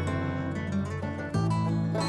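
Background music: an acoustic guitar tune, plucked and strummed over a steady bass, with the chord changing about a second and a half in.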